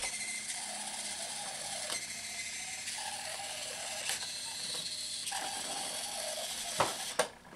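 Boe-Bot robot's continuous-rotation drive servos whirring steadily as it drives, with a couple of knocks near the end before the sound cuts off suddenly.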